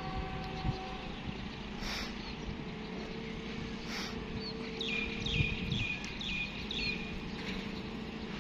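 The tail of a train horn dies away in the first second, leaving a low steady rumble. About five seconds in, a bird gives a quick run of about five chirps.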